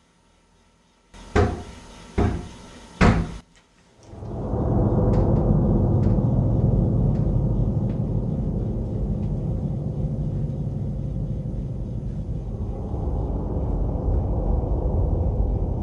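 Three loud knocks on a door, less than a second apart, followed by a loud, steady low rumble.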